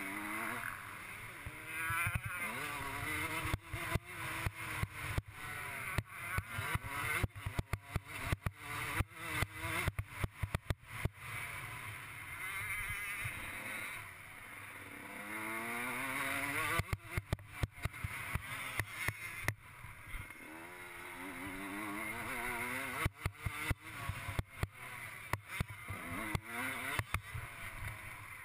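Suzuki RM125 single-cylinder two-stroke motocross engine at race pace, its pitch climbing again and again as it revs out through the gears and dropping off between pulls. Frequent sharp knocks and buffeting hit the helmet-mounted microphone as the bike runs over the bumpy dirt track.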